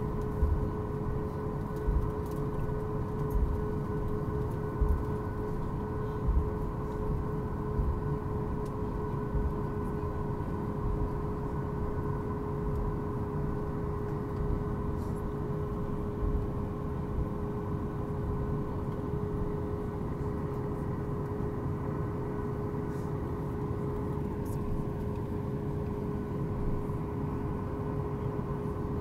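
Cabin noise of a Boeing 737 MAX 8 taxiing: its CFM LEAP-1B engines at idle give a steady tone over a low rumble, with short thumps in the first few seconds as the wheels roll over joints in the concrete.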